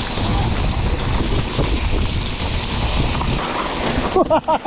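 Wind rushing over an action camera's microphone as a mountain bike rides fast down a dirt downhill trail, mixed with a low rumble from the bike and tyres. The noise sets in abruptly and cuts off about four seconds in, with a voice after it.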